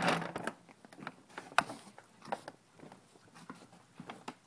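Handling noise from a phone camera being moved: scattered light clicks and knocks, with one sharper knock about a second and a half in.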